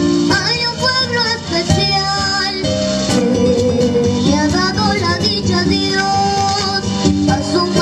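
A young girl singing into a microphone over a music accompaniment, her amplified voice carrying a melody with wavering held notes.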